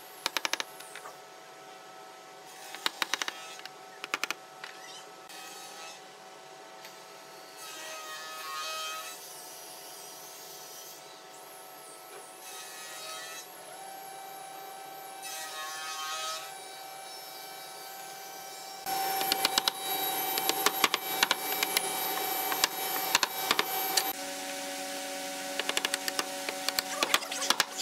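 Bench work on a small wooden frame: scattered clusters of taps and clicks, then, about two-thirds of the way in, a power tool starts and runs with rapid clicking and a steady whine whose pitch steps down near the end.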